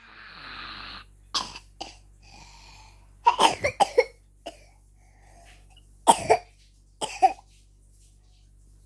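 A child coughing on purpose: a breathy intake, two small coughs, then a run of several sharp coughs, followed by two more single coughs a few seconds later.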